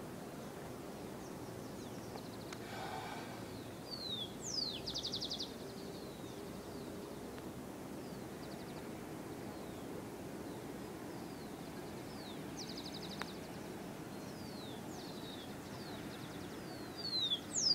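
Outdoor mountain ambience: a steady background hiss with small songbirds calling now and then, in thin falling whistles and short rapid trills, the calls louder near the end.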